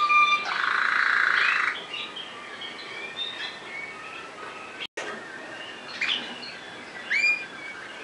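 Waterslager (Malinois) song canary singing. A held whistled note runs into a loud, fast rolling trill, then softer chirps and twitters, and a few clear gliding whistles near the end.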